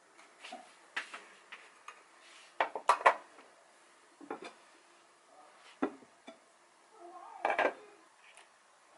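Kitchen clatter of a knife, an enamel dish and a ceramic clay pot being handled and set down on a wooden cutting board: a string of separate knocks and clinks, loudest about three seconds in and again near the end.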